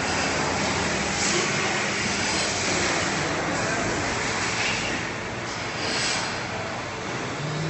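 Double-head machining center running: a steady mechanical noise with a low hum and several brief hissing surges. Near the end a hum steps up in pitch and holds.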